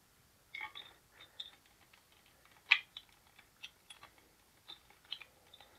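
Small plastic clicks and taps as a G.I. Joe action figure is pressed into the seat of the plastic Ninja Lightning toy cycle, with one sharper click a little under three seconds in.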